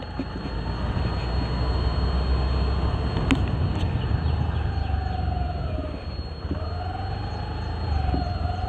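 Honda Dio scooter riding along with its engine pitch rising and falling twice as the throttle changes, over a steady low wind rumble on the mic. A thin, steady high whine runs underneath: the unexplained 'keen' sound the rider hears from the scooter while moving, likening it to the indicator sound. One short click a little after three seconds.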